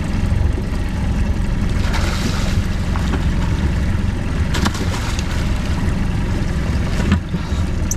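Fishing boat's engine running steadily, with water and wind noise over the hull, and a few short knocks about halfway and near the end.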